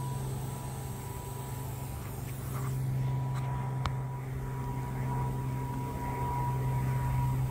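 Steady low drone of a single-engine Cessna propeller plane, growing slightly louder as it approaches.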